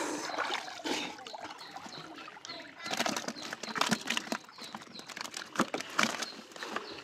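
Water splashing and slapping in shallow water, in irregular clusters of sharp splashes, heaviest about three seconds in and again near six seconds.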